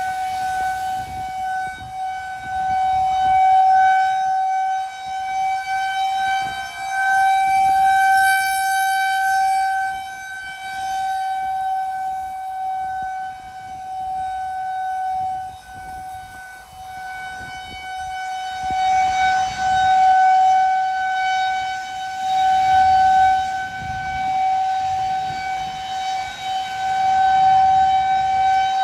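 Federal Signal 2001-130 rotating outdoor warning siren sounding a steady, unchanging tone. Its loudness swells and fades every few seconds as the rotating head sweeps past.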